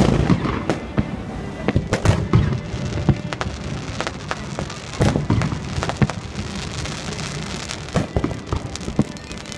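Fireworks going off: a dense run of bangs and crackles, with a fresh cluster of bangs about five seconds in and more near the end.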